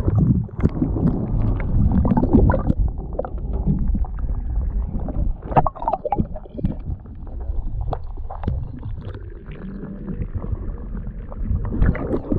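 Muffled water sound heard with the camera's microphone held under the surface: a low rumbling and gurgling wash with scattered knocks and clicks.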